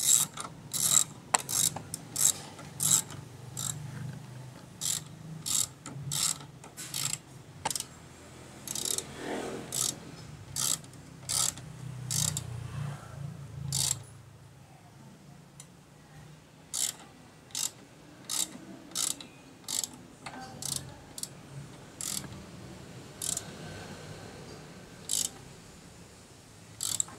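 Hand ratchet wrench clicking in short bursts, about one or two strokes a second, with a few pauses along the way, over a low hum in the first half.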